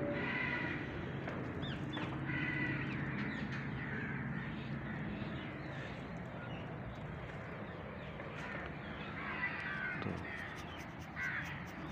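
Crows cawing now and then: a few calls near the start, a couple of seconds in, and two near the end, over a steady low hum.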